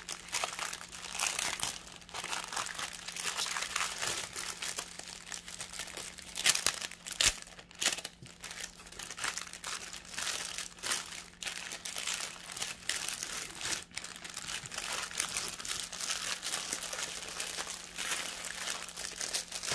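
Clear plastic bag crinkling and crackling as strips of diamond-painting drills are pushed back into it, with many sharp crinkles throughout.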